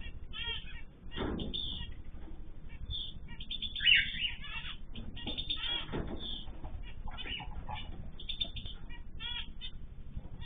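Small pet cage birds chirping together: many short calls in quick series, with one louder call about four seconds in.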